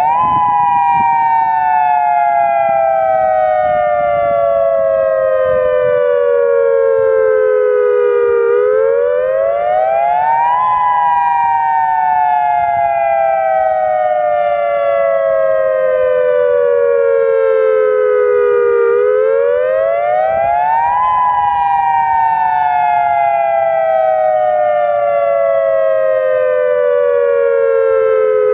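Federal Signal Modulator dual-tone outdoor warning siren sounding the attack signal. Two tones sound together, rising quickly over about two seconds and then falling slowly for about eight. The wail repeats about every ten seconds, loud and steady.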